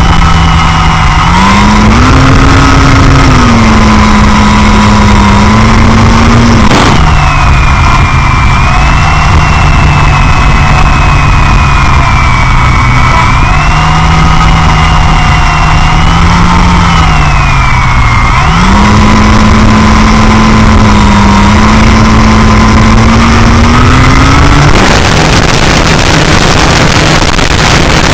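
Onboard sound of a GWS Tiger Moth 400 electric RC model biplane in flight: the motor and propeller hum over heavy wind rush on the microphone, the pitch stepping up and down as the throttle changes. There is a sharp click about seven seconds in, and near the end the hum drops lower and the noise turns rougher.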